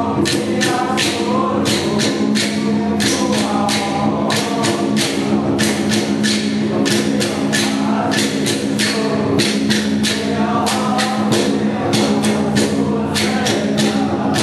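Taiwanese temple ritual music playing for a spirit medium's trance dance. Cymbals clash in a fast, steady beat over a held low drone and a wavering melody.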